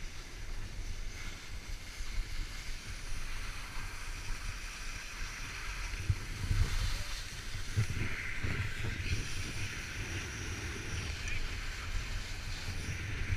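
Wind buffeting the microphone of an action camera carried while skiing, with the steady hiss of skis sliding over groomed snow that grows louder about two-thirds of the way through.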